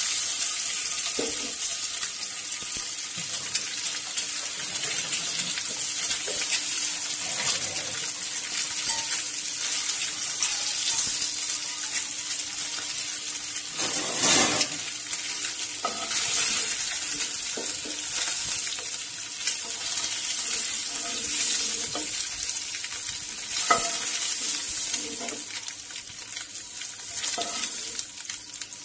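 Boiled eggs sizzling in shallow oil in a nonstick frying pan, with a steady high hiss and a few sharp knocks of a cooking utensil against the pan as they are turned. The sizzle gets quieter near the end.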